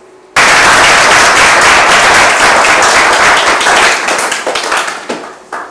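Audience applauding. The clapping starts suddenly about half a second in, holds loud and dense, then thins out and dies away over the last second and a half.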